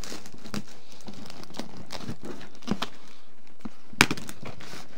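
Parcel being unpacked by hand: scattered crinkling and crackling of packaging, with a sharper snap about four seconds in.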